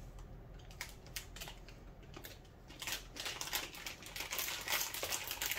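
Plastic snack packaging crinkling as it is handled: a rapid run of small crackles that grows denser and louder about halfway through.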